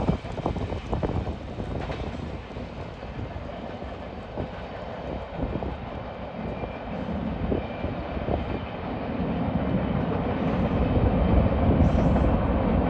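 Freight train rolling past, its railcar wheels rumbling and clattering over the rails with scattered sharp knocks, growing louder over the last few seconds.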